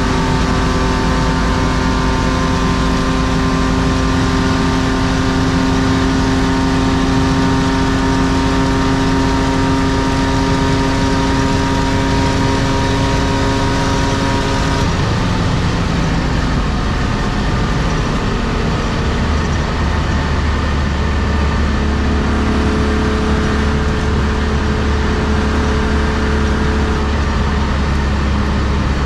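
In-cabin sound of a 1993 BMW E36 325i's M50B25 inline-six with aftermarket headers and exhaust, pulling at steady speed on the motorway over constant tyre and road noise. About halfway through the engine note changes and settles lower.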